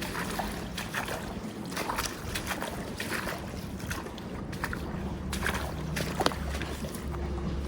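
Wind on the microphone and river water, with scattered small clicks and taps. A low steady hum comes in about five seconds in.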